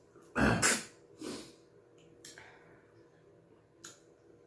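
Close-miked mouth and breath noises of people eating fufu and light soup by hand: a loud, breathy burst about half a second in, a smaller one about a second later, then a few faint clicks.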